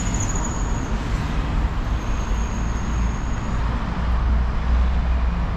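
Steady road traffic noise from passing cars and buses, a low continuous rumble, with a faint high-pitched whine that comes and goes.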